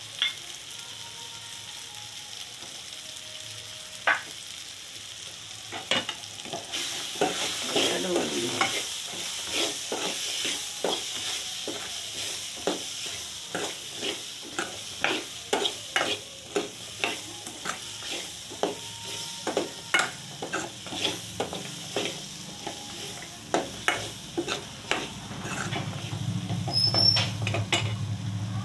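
Metal spatula scraping and clicking against a metal kadhai as green lima beans are stirred into frying onion-tomato masala, over a steady sizzle. After a few quieter seconds the stirring settles into quick strokes, about one or two clicks a second.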